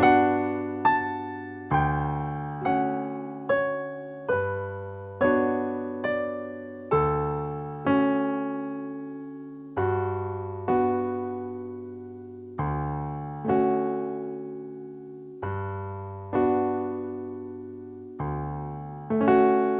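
Donner DDP-80 digital piano playing its stereo grand piano sample in a slow piece. Chords with bass notes are struck about once every one to two seconds, and each is left to ring and fade before the next.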